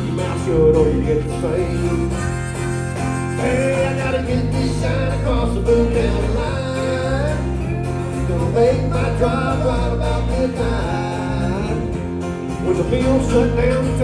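Live country/Americana band: strummed acoustic guitar and electric bass with harmonica and singing.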